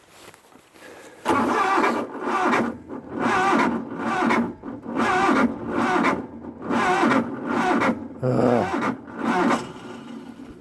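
Terramite T5C compact tractor's engine being cranked over in 10-degree cold, turning in uneven surges about once a second.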